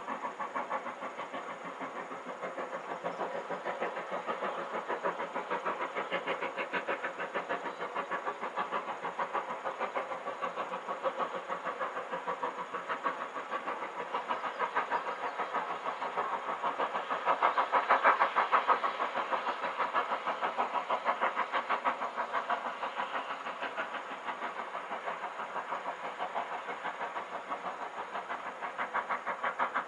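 LMS Black 5 two-cylinder 4-6-0 steam locomotive working a train, its exhaust beats coming in a steady quick rhythm across the valley. The beats swell to their loudest a little past halfway, then ease again.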